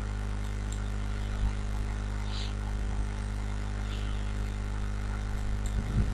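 Steady low electrical hum with a faint hiss underneath, the recording's background noise between narrated lines.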